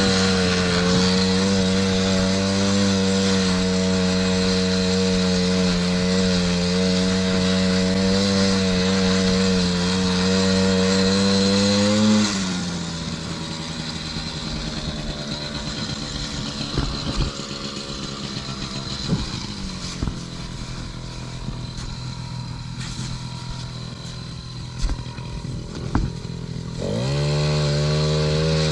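Small 50cc two-stroke engine of a kids' ATV held at steady high revs for about twelve seconds. It then drops off to a low idle with a few scattered knocks. Near the end it revs up quickly again.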